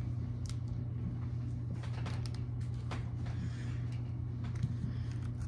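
A steady low hum with a few faint clicks and crinkles as a cookie's plastic wrapper and a small decorating packet are handled.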